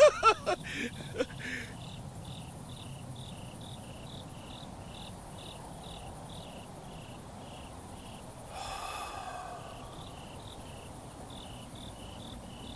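Crickets chirping in a steady, regular rhythm over a low night-time background. A man's voice dies away in the first second or two, and a brief rustling swish comes about two-thirds of the way through.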